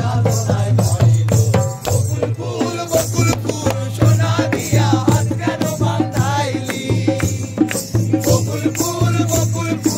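Folk song sung by a group of voices over hand-beaten barrel drums, a dhol and a larger cane-framed drum, struck in a quick steady rhythm with a rattling shaker-like sound among the strokes.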